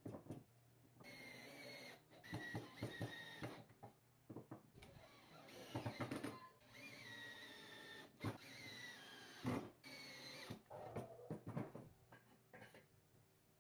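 Faint small electric power tool running in several short bursts, each a steady whine that dips slightly in pitch. Sharp knocks and clatter of workpieces and tools fall between the bursts.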